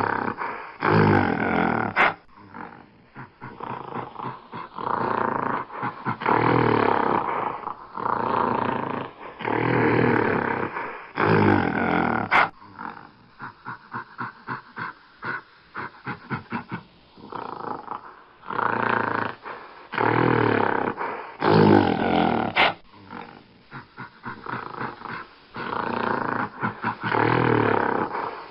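Gorilla vocalizing: deep, loud grunting roars about a second long, repeated every few seconds, with runs of short, quick grunts in between.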